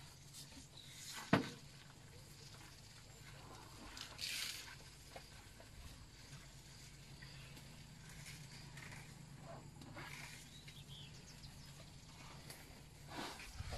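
Faint steady low hum of a safari vehicle's engine idling, with one sharp click a little over a second in and a brief rustle around four seconds.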